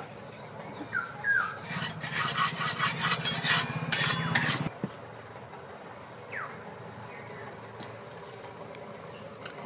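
Metal spatula scraping around the inside of a metal kadai as curry is stirred, a run of quick rasping strokes for about three seconds before it stops.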